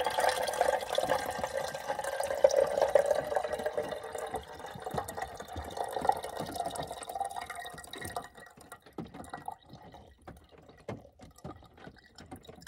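Rinse water poured off a pot of cranberries into a metal tea kettle, the lid held on as a strainer. A steady stream runs for about eight seconds, then thins to a trickle and a few drips.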